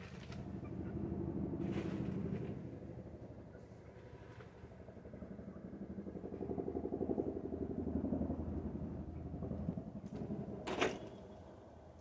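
A motor vehicle's engine rumbling, swelling and fading twice as it passes, the second pass longer. A single sharp clank near the end.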